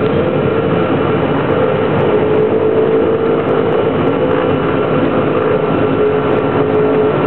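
Piper Cheyenne II's twin PT6A turboprop engines running, heard inside the cockpit: a loud, steady drone with a humming tone that drops slightly in pitch about halfway through.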